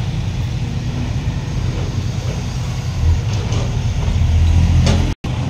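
Dump truck's diesel engine running while its raised bed tips a load of wet clay soil out past the swinging tailgate. The engine grows louder from about three seconds in, with a few faint knocks near the end, and the sound cuts out for a moment just before the end.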